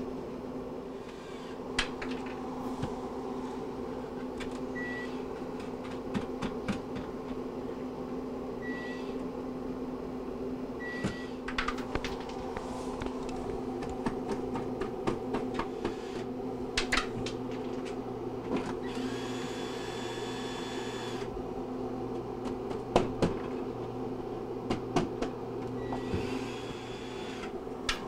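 Steady hum of a running Admiral side-by-side refrigerator, its freezer evaporator fan motor turning, with scattered clicks and two brief runs of a cordless drill-driver backing out the freezer back-panel screws, the second near the end.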